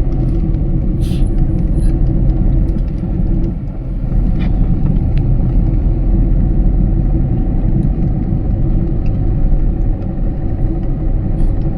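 Steady engine and road rumble of a vehicle being driven, heard from inside, dipping briefly about three and a half seconds in.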